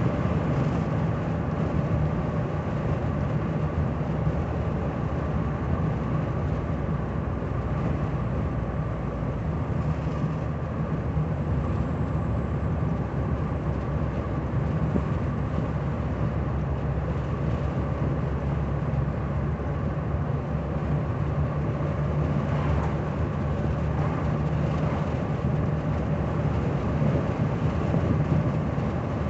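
Steady drone inside the cabin of a 1985 Cadillac Cimarron cruising at an even speed: engine hum mixed with tyre and road noise, with no change in pace.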